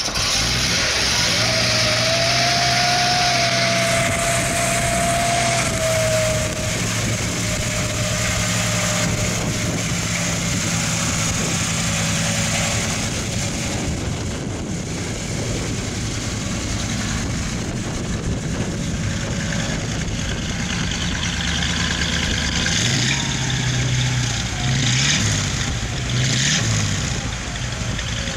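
1955 Chevrolet Bel Air's 265 cubic-inch small-block V8 running at a steady idle, then revved briefly a few times near the end.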